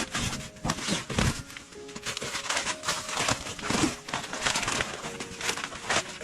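Rustling and crinkling handling noises, many small irregular crackles close up, over soft background music.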